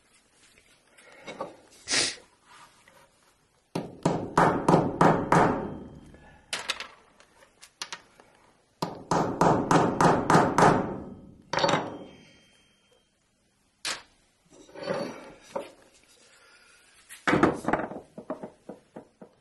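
Small hammer tapping bronze tacks into wooden checker pieces on a workbench: two runs of quick taps, about four a second, with a few single knocks between.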